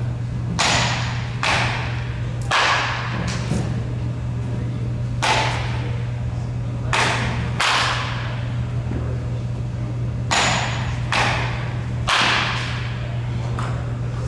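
Batting practice: a bat sharply striking baseballs again and again, about a dozen hits, some followed about half a second later by the ball hitting the cage netting or padding. A steady low hum runs underneath.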